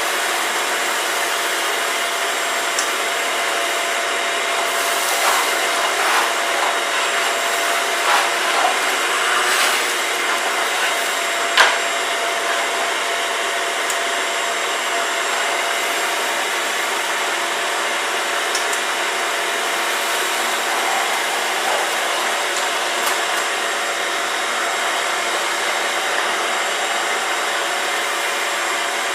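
Vacuum cleaner running steadily with a motor whine as it picks up a mess, with a few brief rattles and one sharp knock about twelve seconds in.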